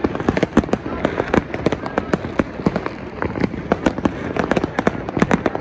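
Many fireworks going off close by at once: a dense, irregular barrage of bangs and crackles, several a second, with no let-up.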